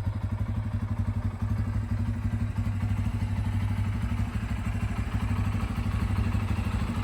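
Bajaj Pulsar N250's single-cylinder engine idling steadily through its exhaust, an even, fast pulsing note with no revs.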